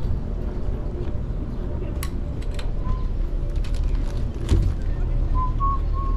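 City street ambience: a steady low rumble of traffic, with a few sharp clicks, the loudest about four and a half seconds in, and thin high chirping sounds near the end.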